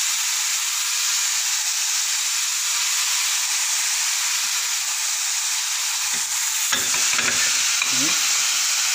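Bolognese meat sauce sizzling steadily in a hot nonstick pan while it is stirred and spread with a metal spoon; from about seven seconds in, the spoon scrapes and clicks against the pan.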